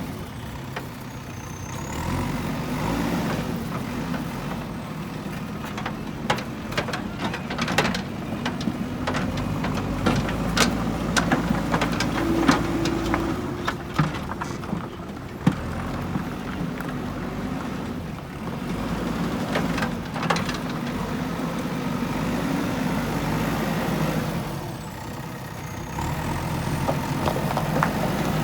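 JCB backhoe loader's diesel engine working, its load rising and falling, with many sharp clanks of stones striking the steel bucket, mostly in the middle of the stretch and again briefly later.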